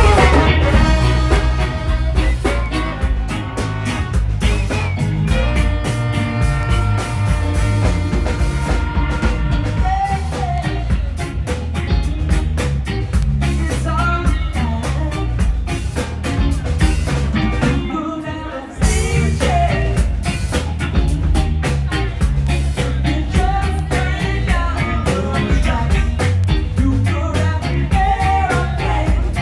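Live band playing a song with singing over heavy bass and drums. The music drops away briefly about two-thirds of the way through, then comes straight back in.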